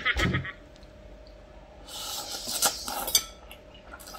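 Instant pancit canton noodles being slurped from glass bowls, with metal forks clinking against the glass and a sharp clink near the end.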